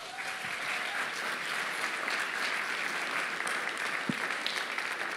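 Audience applauding steadily, with a single low thump about four seconds in.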